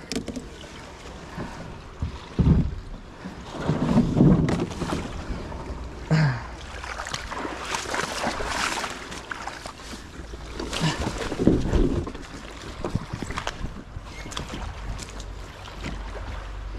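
Plastic Old Town pedal-drive kayak moving through shallow water and coming ashore: sloshing, splashing water around the hull with several hollow knocks on the plastic hull.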